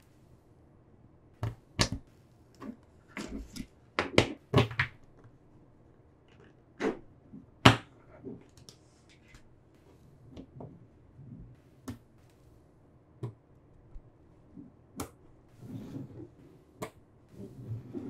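Small magnetic balls clicking and snapping together as a sheet of them is split and folded by hand: irregular sharp clicks, the loudest snaps about four seconds and nearly eight seconds in, with soft rattling of the balls between.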